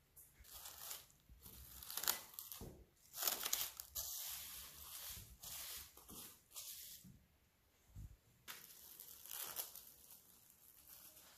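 Plastic cling film crinkling and crackling as it is pulled and stretched over a glass bowl of dough, then, after a short pause, crinkling again as it is peeled back off the bowl.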